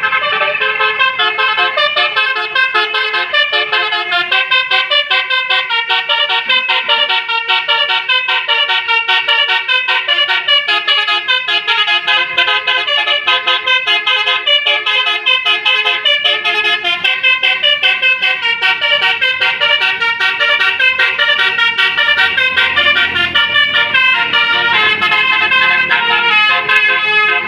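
A bus's multi-tone telolet (basuri) horn playing a long, loud tune of many quick, changing notes.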